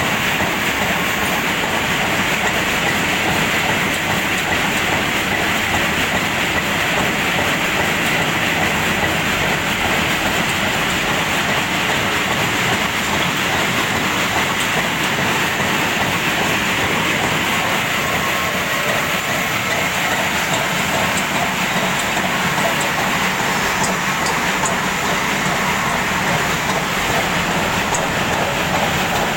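Two-tier peanut sorting machine running under test, a steady rattling clatter that holds even throughout.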